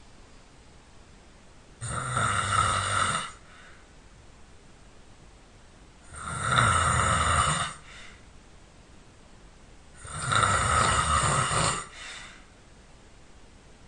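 A person snoring loudly: three long, rasping snores, about four seconds apart, with quiet between them.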